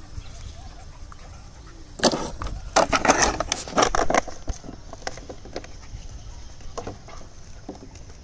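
A Caravan Hound and a Rottweiler puppy play-fighting on grass. A run of loud, rough, noisy bursts of scuffling comes between about two and four seconds in, with a few smaller ones later, over a low steady rumble.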